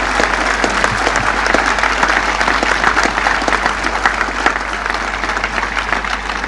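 A large outdoor crowd applauding, a dense steady clatter of clapping that slowly dies down toward the end.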